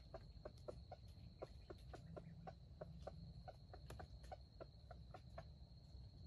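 Faint, steady high-pitched trill of a forest insect such as a cricket, with a quick run of soft ticks, about four a second.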